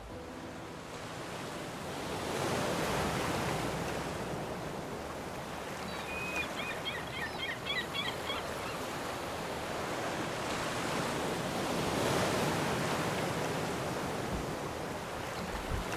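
Sea waves washing onto a rocky shore, swelling twice and ebbing between. Midway a short run of high chirps sounds over the surf for about two seconds.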